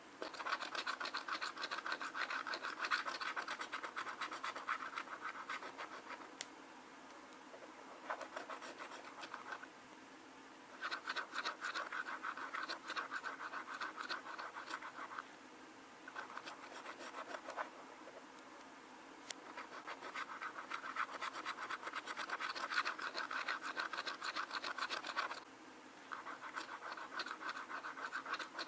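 A coin scratching the latex coating off a paper lottery scratch ticket in quick, rasping strokes. It comes in several runs of a few seconds each, with short pauses between.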